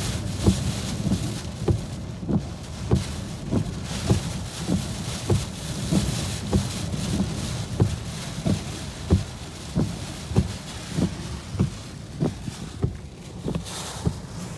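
Heavy rain and gusting wind hitting a car, a steady hiss that swells and eases, with a regular low thump about every 0.6 seconds.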